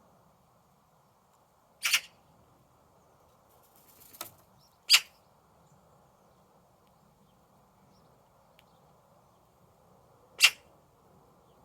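Birds calling: four short, sharp calls a few seconds apart, the first a quick double and the last two the loudest, over a faint steady background.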